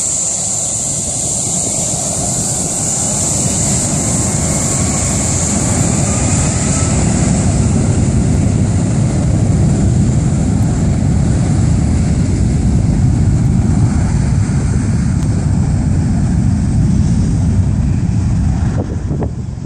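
Cargo jet's engines running, a hair-dryer-like whine with a deep rumble that builds over the first eight seconds or so, then drops off sharply near the end.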